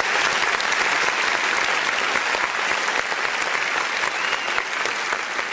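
Canned studio-audience applause, a steady clapping that slowly fades.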